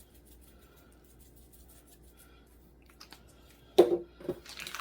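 Quiet room tone, then close to four seconds in a sharp knock followed by a few brief handling and rustling sounds as kitchen items are picked up and set down.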